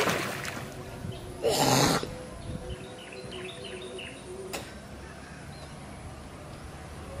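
A cast net's splash into a pond dies away at the start, and a short, loud rush of noise follows about a second and a half in. After it come a run of faint, high bird chirps and a single click.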